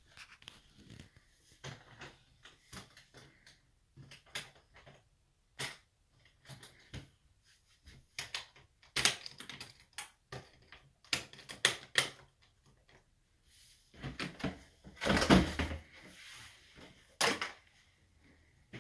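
Clicks and knocks of a metal-trimmed DJ flight case being unlatched and its lid opened, with a louder clatter near the end.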